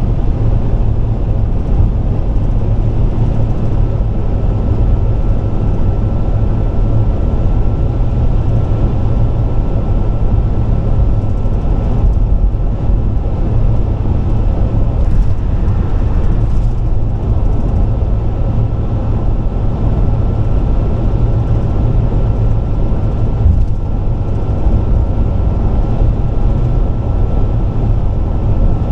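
Car driving at highway speed: steady low rumble of tyre and road noise, with a faint steady high whine above it.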